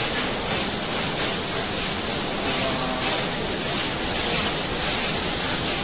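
Steady hiss of workshop noise around a running automated production machine, with faint irregular clicks through it.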